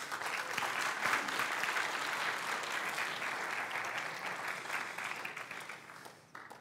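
Audience applauding, the clapping fading away about six seconds in.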